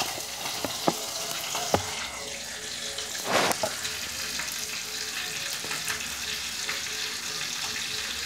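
Steady sizzle of oil frying in a pan on the stove, with a few light clicks and a brief louder rush about three seconds in.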